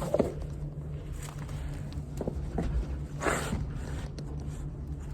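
Muffled rustling of clothing and scattered knocks from a phone that has been put away in a pocket while its holder tries to climb, with a louder scrape about three seconds in, over a steady low hum.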